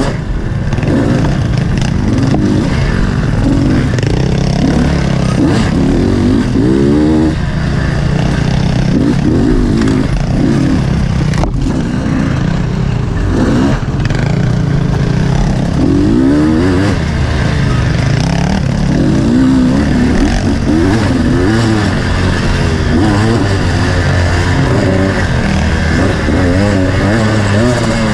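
Dirt bike engine ridden hard off-road, the throttle opened and closed again and again, so its pitch rises and falls every second or two.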